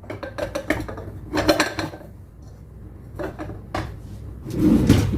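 Metal kitchen utensils, scissors and a garlic press, clinking and clattering as they are put into a small utensil pot, with scattered light clicks and a heavier knock near the end.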